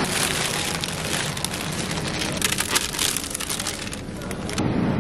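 Cellophane wrapping around a sunflower bouquet crinkling as it is grabbed and handled. The dense crackle eases off about four seconds in.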